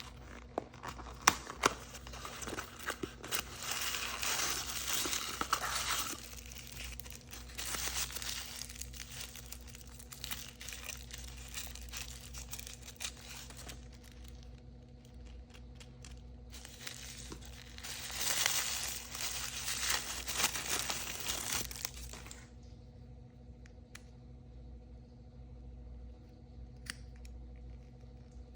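Packaging being torn open and crinkled by hand, in several bursts with many small clicks and rustles. Near the end the handling turns quieter, with only scattered light ticks.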